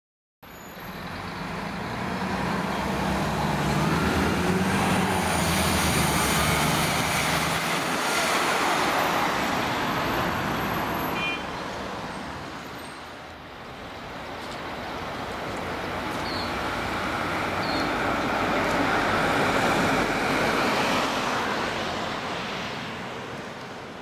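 Road traffic: cars passing by, their engine and tyre noise swelling and fading twice, with a sudden drop about eleven seconds in.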